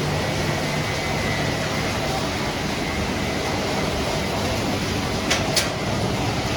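Steady, loud running noise of refrigerator recycling plant machinery, with a faint hum and two sharp clicks a little after five seconds in.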